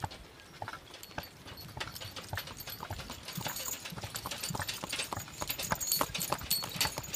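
Horse's hooves clopping on a paved road as it pulls a two-wheeled cart, a steady run of sharp hoofbeats that grows louder over the last few seconds as the horse comes closer.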